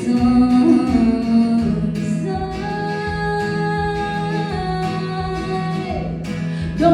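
A woman's voice holds long sung notes over acoustic guitar.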